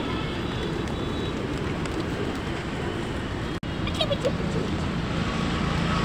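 Steady outdoor background noise, an even hiss with no single clear source, broken by a momentary dropout about three and a half seconds in, with a few faint short high sounds just after.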